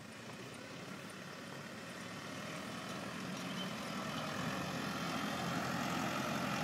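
Tractor engine running as it pulls a Harley power rake through sand, a steady mechanical drone that grows louder as the tractor comes closer.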